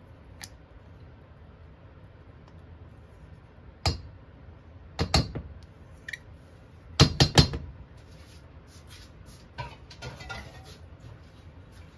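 A spatula and a container knock against the rim of a stainless-steel saucepan as ketchup is scraped out. There is a single knock about four seconds in, a pair about a second later, and a quick run of three or four louder knocks about seven seconds in, then lighter clicking and scraping.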